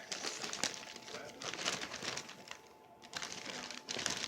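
Rustling and scraping as objects are handled, in three bursts: the first starts at once, the second about a second and a half in, and the third about three seconds in.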